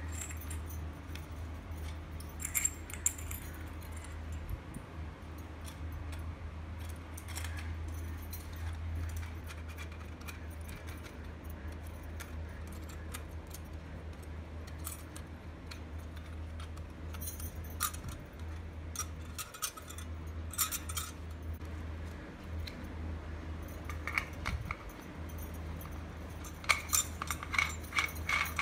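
Scattered light metallic clinks and jingles as a small brass oil lamp is taken apart and handled, with the bangles on the wrists jingling. They come in short scattered groups and grow denser near the end, over a steady low hum.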